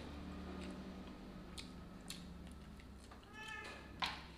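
Mouth-eating sounds, with small wet clicks and lip smacks, while a cat meows once, a bending call, about three seconds in. A single sharp knock near the end is the loudest sound.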